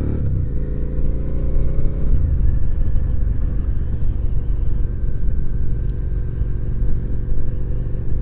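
Suzuki SV650's 645 cc V-twin engine under way, shifting up right at the start and again about two seconds in, then running at a steady speed.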